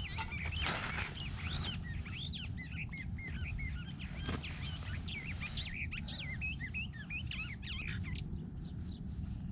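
Songbirds chirping, many quick up-and-down calls that thin out near the end, over a steady low rumble.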